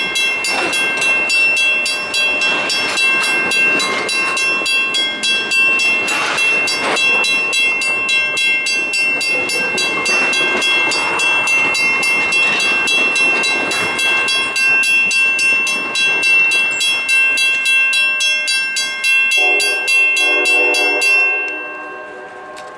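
Passenger coaches and a Budd RDC rolling slowly past, the wheels squealing steadily with a fast regular clicking over the rail. Near the end a train horn sounds for about two seconds, then the sound drops away abruptly.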